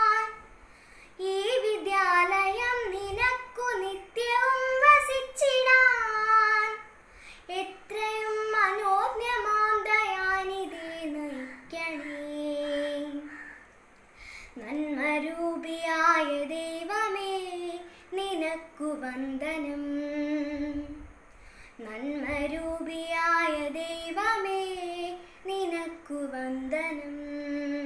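A young girl singing a Malayalam prayer song solo and unaccompanied, in long sung phrases with short breaths between them.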